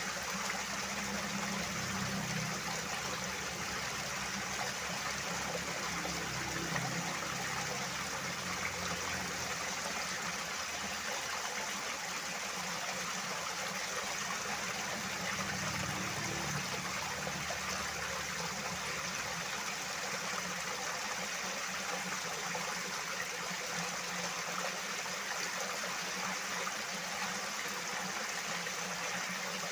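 Loud, steady rushing of flowing water, with a deeper rumble swelling near the start and again about halfway through.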